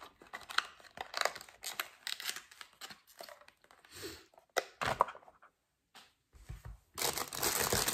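Scattered soft clicks and rustles of hands handling a small cardboard box. About seven seconds in, a continuous crinkling of plastic wrapping begins.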